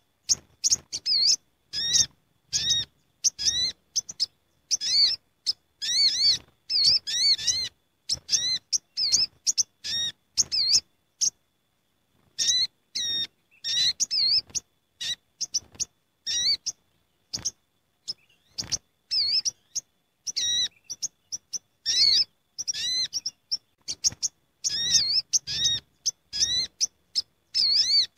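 Olive-backed sunbirds (sogok ontong) calling together, the busy chatter of a gathered group. Rapid high chirps and bouncing, trilled notes come in quick bursts, with a brief pause about two-fifths of the way in.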